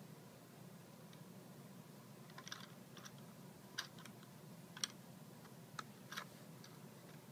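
Faint handling noise: about half a dozen light, irregular clicks and taps, as a hand and the camera move around a small metal-strip frame, over a low steady hiss.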